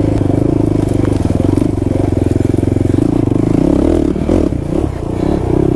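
Kawasaki KFX 450R quad's single-cylinder four-stroke engine running steadily under way. It turns uneven for a second or so about four seconds in, then settles again.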